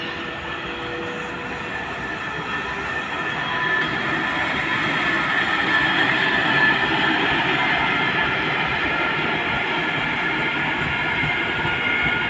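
Passenger train coaches rolling slowly past on the station track: a steady rumble and rattle of the wheels on the rails, with a thin high squeal running through it. The sound grows louder about four seconds in.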